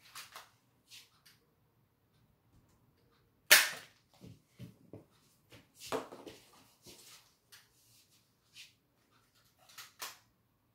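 Toy dart gun fired once, a sharp snap about three and a half seconds in, with softer clicks and knocks after it as the toy is handled and the dart lands.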